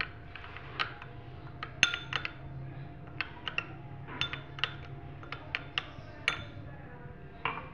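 Metal spoon clinking and scraping against a ribbed glass bowl while stirring a thin flour-and-water paste: irregular clinks, a few of them ringing briefly.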